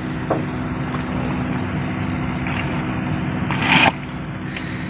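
Steady low engine hum from the refuelling of a moored wooden fishing boat, a bit noisy. About three and a half seconds in, a short, loud rushing hiss rises over it and stops suddenly.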